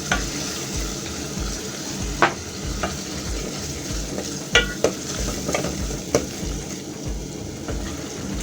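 Tomatoes and tomato paste sizzling in a frying pan while a spoon stirs them, with several sharp scrapes and knocks of the spoon against the pan. The mixture is cooking down into a thick paste.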